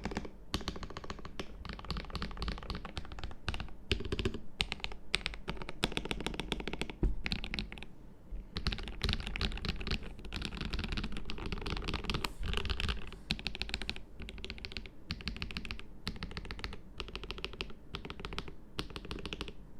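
Fast typing on a KBD67 Lite mechanical keyboard with a transparent ABS plastic case, lubed KTT Strawberry linear switches and GMK Red Samurai keycaps, in runs of a second or two with short pauses between. The keystrokes and the Durock stabilised larger keys clack with a somewhat hollow case sound.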